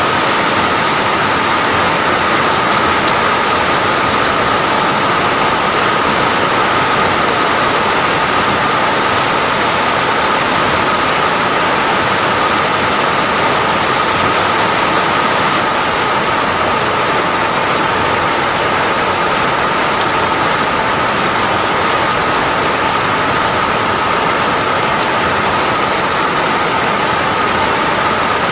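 Steady, dense rain falling and pattering on a surface, with a steady high tone running through it.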